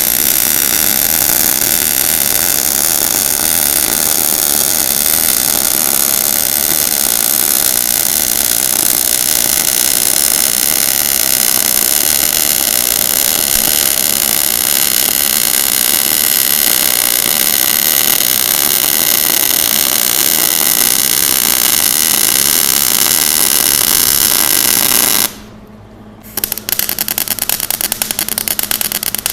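MIG welding arc burning with the voltage too high and the wire feed speed too low: a loud, continuous hissing crackle that pops as the wire barely feeds out. The arc breaks off about 25 seconds in and strikes again about a second later with a fast, even crackle.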